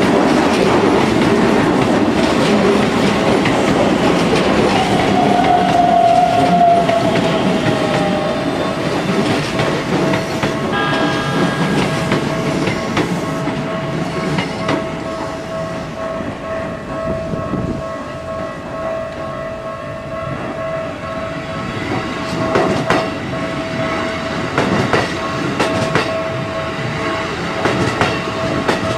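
Electric commuter trains running over a level crossing, with loud wheel-on-rail rumble and clatter. It eases off about two-thirds of the way through and picks up again with sharp wheel clacks near the end. A steady pulsing warning tone, typical of a Japanese crossing signal, rings through most of it.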